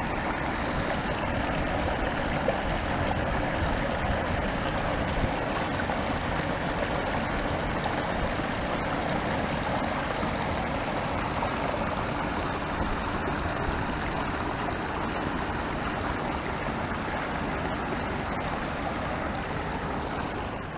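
Stormwater runoff rushing down a riprap-lined drainage channel, churning as it pours over the rocks into a rock-lined basin. It is a steady, even rush of water.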